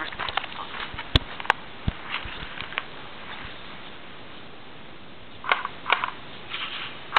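Footsteps crunching through dry leaves and twigs, with many small crackles. Two sharp snaps come about a third of a second apart, a second in, and louder rustles come near the end.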